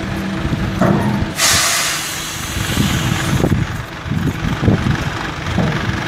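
Dump truck's diesel engine running while its tipper body is raised to dump fill, with a loud burst of air hiss starting about a second and a half in and lasting about two seconds, then an uneven low rumble.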